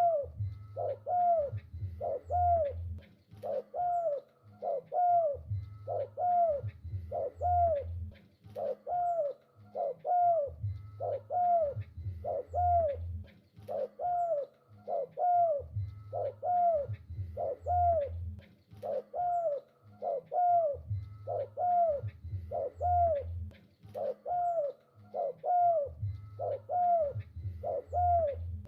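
Spotted dove calling over and over: a short arching note repeated a little more than once a second, with deeper coo phrases returning every five seconds or so.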